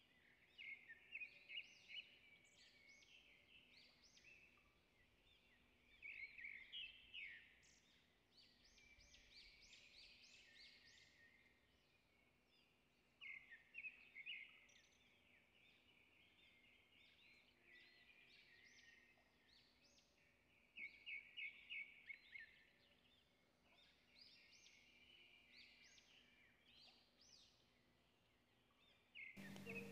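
Faint bird chirping, in short bursts of quick notes every few seconds.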